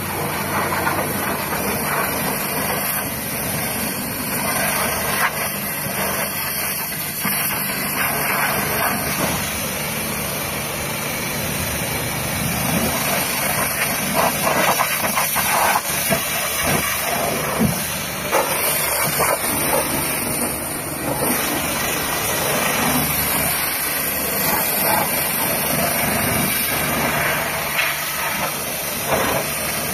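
Pressure washer running steadily, its high-pressure water jet hissing as it blasts the tyre and wheel arch of a pickup truck, over a steady motor hum.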